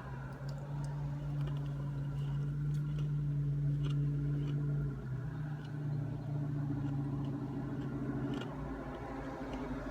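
A car engine idling with a steady low hum that shifts pitch slightly about five seconds in, with a few faint clicks over it.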